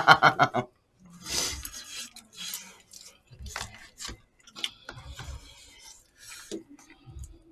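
A short laugh trails off at the start, then eating sounds: metal spoons scraping and tapping in a foil tray and paper cups, with chewing and a few light clicks.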